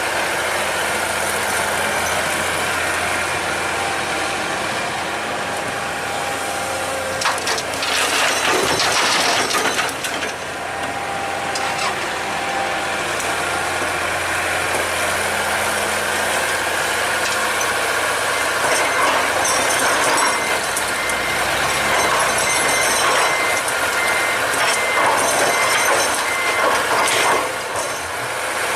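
Excavator's diesel engine running steadily, working harder with louder, rougher stretches of hydraulic and bucket noise about a quarter of the way in and again over the second half.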